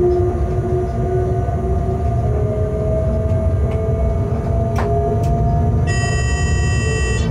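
Running noise in the cab of an electric locomotive: a steady low rumble with a whine that drifts slowly in pitch. There are two sharp clicks about five seconds in, and near the end a high electronic tone sounds for about a second and a half.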